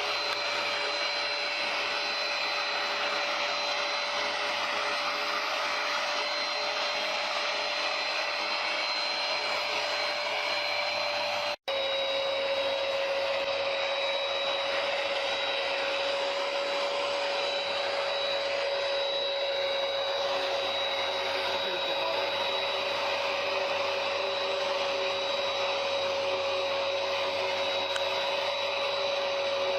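Hoover PowerDash Pet carpet cleaner running steadily, its motor giving an even whine with a fainter high tone. It cuts out for an instant partway through, then carries on at a slightly lower pitch.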